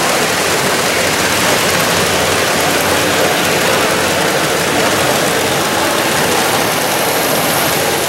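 Steady, even din of a crowded exhibition hall: many voices blending into one continuous murmur, with no single voice or knock standing out.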